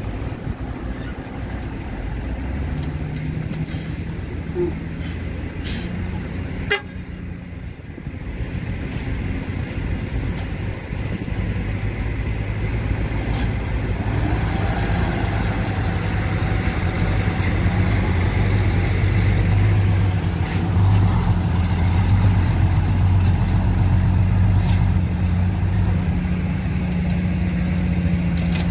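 A heavy dump truck's diesel engine running as the truck manoeuvres, a steady low drone that grows louder about a third of the way through.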